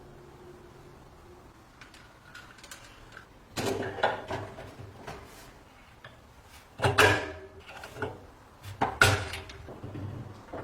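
Metal parts being handled: a few light clicks, then three louder clanks with a brief metallic ring, each followed by smaller knocks and scrapes.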